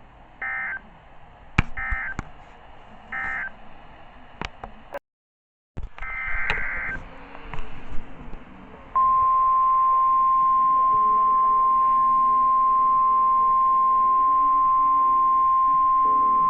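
NOAA Weather Radio's digital SAME data bursts, three short warbling bursts a little over a second apart, then another burst after a brief dropout. About nine seconds in, the steady 1050 Hz warning alarm tone starts and holds as one loud, unbroken tone, signalling that a new warning follows.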